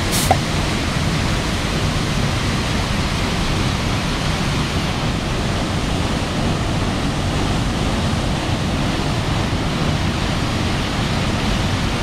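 Waterfall plunging into a rock pool: a steady, loud rush of falling water, with a brief click just after the start.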